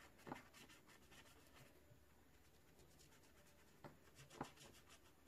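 Faint, short scratching strokes of a marker colouring on paper, a handful in the first second and a half and a few more about four seconds in.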